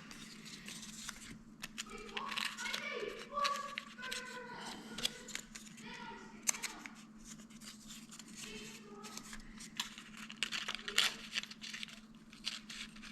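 Irregular scratching, tearing and crinkling from hand work on a paper car-speaker cone, just after its dust cap has been cut away, over a faint steady hum.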